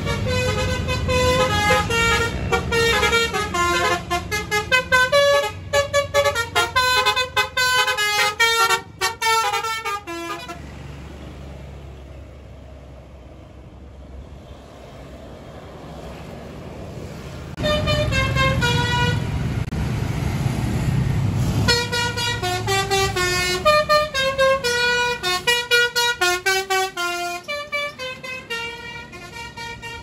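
Bus 'telolet basuri' musical air horns playing quick, stepping horn melodies. The tune stops about ten seconds in. A vehicle engine's low rumble then swells loudly for a few seconds, and the horn melodies start again about twenty-two seconds in.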